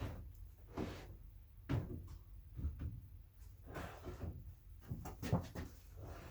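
Irregular handling knocks and bumps, a dozen or so short hits spread over several seconds, with the loudest one near the end.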